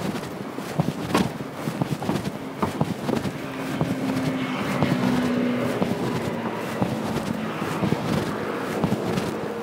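City street: a car passing by, its engine and tyre noise swelling about four seconds in and then fading, with footsteps of someone walking along the road.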